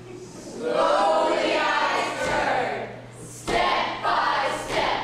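Several voices singing together in a stage musical, in two phrases with a short break between them, over a steady low hum.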